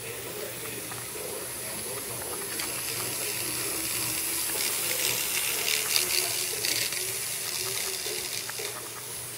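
Märklin mini-club Z-scale model train running along its track, a hissing whirr of the small motor and wheels with light clicking, growing louder in the middle as the locomotive passes close by.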